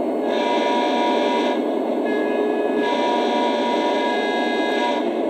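Lionel O-gauge SD70ACE model's onboard sound system playing a steady diesel engine rumble. A multi-tone air horn sounds over it twice, the second blast longer.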